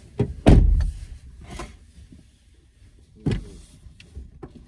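Car doors opening and shutting as someone climbs into the back seat: two heavy thumps, about half a second in and a little past three seconds, with a few lighter clicks and clunks between.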